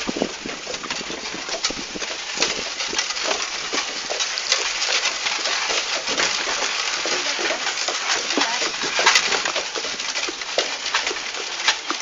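Horse-drawn cart moving along: a dense, irregular clatter of knocks and rattles from the cart and the horse's hooves on the road.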